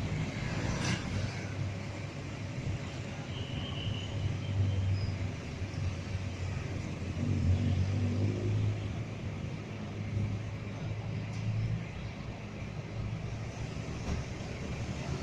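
Scania coach's diesel engine idling with a steady low rumble, with a short click about a second in.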